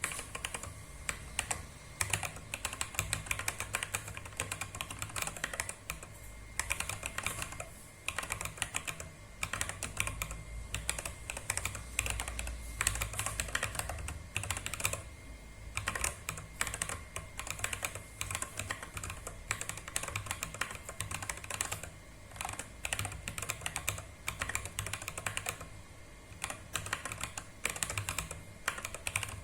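Fast typing on a compact 30-key mechanical keyboard: a dense run of key clicks, with a few short pauses between bursts.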